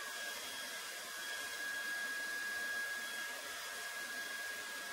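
A 2200-watt hair dryer blowing hot air steadily: an even rush of air with a thin, steady high whine from the motor.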